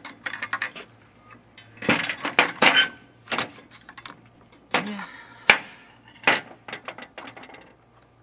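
Screwdriver prying at the plastic housing of a Craftsman 20V cordless circular saw: an irregular string of sharp clicks, creaks and cracks as the plastic is forced and breaks, the sharpest crack about five and a half seconds in.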